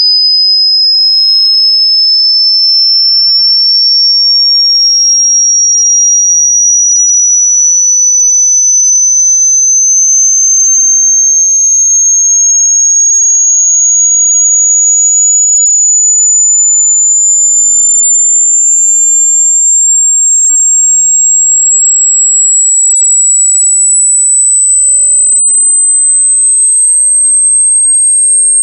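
A single pure electronic sine tone, very high-pitched, gliding slowly and evenly upward in pitch at a steady, loud level, like a test-tone frequency sweep.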